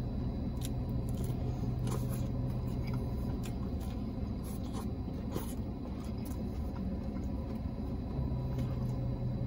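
A man biting into and chewing a toasted sub, with faint scattered mouth clicks, over a steady low hum inside the car.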